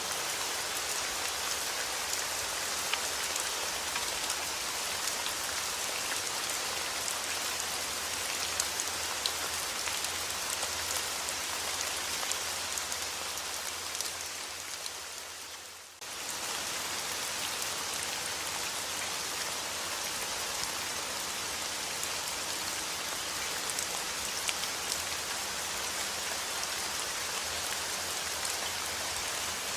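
Steady rain falling, with scattered individual drop ticks over an even hiss. About halfway through it fades down for a couple of seconds and then comes back abruptly.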